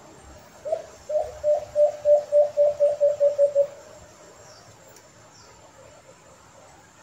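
White-eared brown dove (alimokon) calling: a run of about a dozen low coos that speed up and stop about three and a half seconds in.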